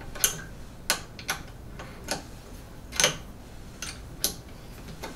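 Irregular sharp plastic clicks and small knocks, about seven, as a Bowden tube is worked out of the push-fit coupler on top of an Ender 3 Max's stock hot end.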